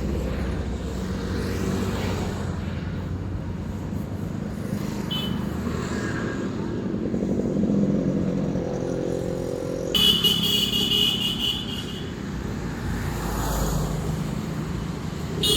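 Road traffic: vehicle engines running steadily, with a short horn beep about five seconds in and a longer horn blast of about two seconds around ten seconds in.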